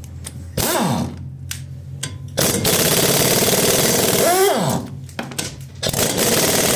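Pneumatic impact wrench hammering on a car's wheel nuts to undo them. A short spin-up comes first, then a loud rattling burst about two seconds long that ends in a falling whine as the air motor winds down, and another burst starts near the end.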